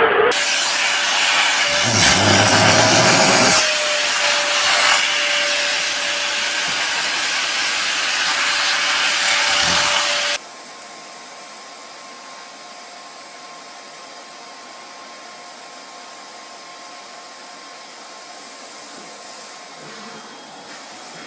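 Vacuum cleaner running with a steady whine. About ten seconds in, the sound cuts suddenly to a quieter, steady running noise with a higher whine.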